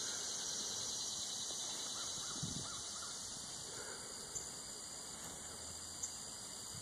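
Outdoor ambience: a steady high hiss, with a quick run of about four faint bird calls two to three seconds in.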